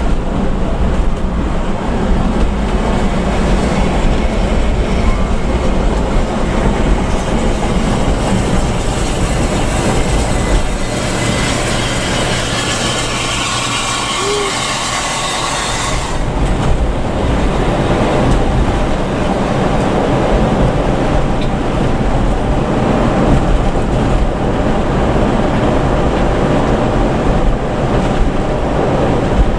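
Coach cabin noise at highway speed: a steady low drone of engine and road rumble. From about eleven seconds in, the low drone eases while a hiss of rushing air and tyres swells as another bus is passed close alongside, then the hiss cuts off suddenly about five seconds later.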